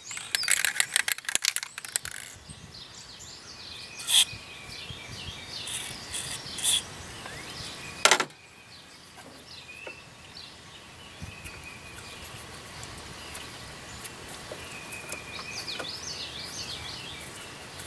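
Wild birds chirping and singing in the background. A rapid run of sharp clicks in the first two seconds and two single loud knocks, about four and eight seconds in, come from work on the car.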